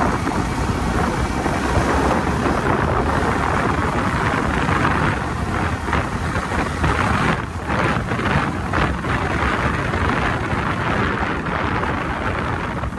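Steady wind noise rushing over the microphone of a phone on a moving motorcycle, with the bike's running and road noise underneath.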